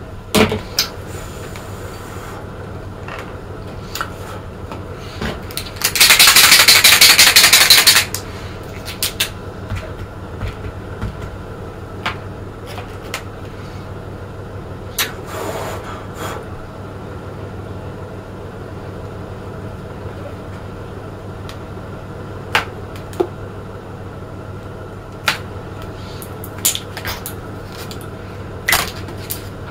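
Hands working a latex balloon figure with a marker: scattered light clicks and taps, and one loud, rough rush of noise lasting about two seconds, a few seconds in.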